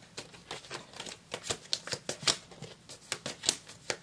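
A tarot deck being shuffled by hand: a run of irregular, quick card snaps and flicks.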